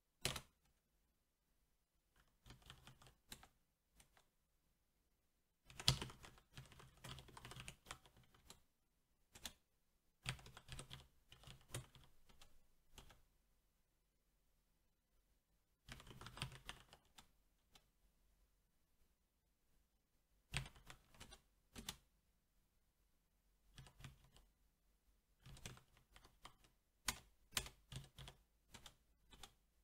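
Typing on a SteelSeries 6Gv2 mechanical keyboard with Cherry MX Black switches: short runs of keystrokes separated by pauses of a few seconds, the keys coming thickest near the end.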